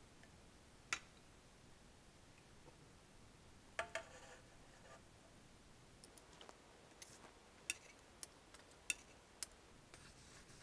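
Near silence broken by a few faint sharp clicks and light metallic knocks from aluminium tins and a saucepan being handled on a counter. About four seconds in a close pair of knocks rings briefly, and a scatter of thinner clicks follows later.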